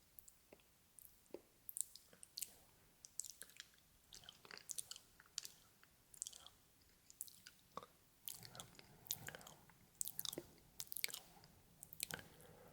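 Close-miked ASMR mouth sounds: irregular wet clicks and smacks of lips and tongue, several a second, growing denser in the second half.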